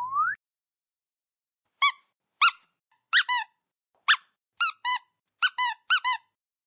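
Comic squeak sound effect: about a dozen short, high squeaks, some single and some in quick pairs, each rising and falling in pitch. They begin a couple of seconds in, after a rising whistle glide ends at the very start.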